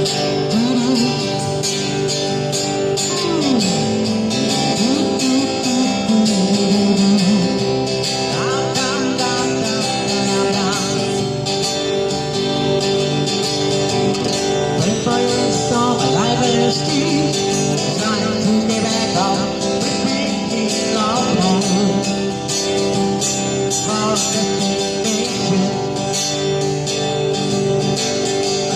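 A busker singing with a strong voice over acoustic guitar accompaniment.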